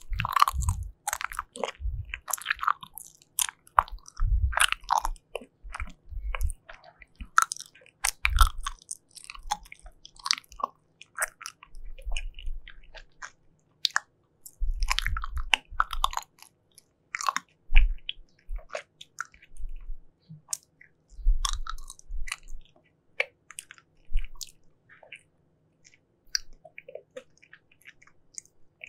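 Close-miked chewing and biting of sugar-coated gummy jelly, with sticky, crackly mouth sounds and gritty crunching. The chewing comes in bursts with short pauses between them and thins out near the end.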